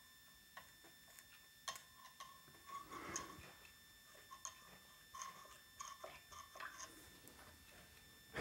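Faint scattered clicks and light scraping of a hand screwdriver working the neck screws through the neck plate of a Stratocaster-style guitar, as the neck is refitted over a paper shim.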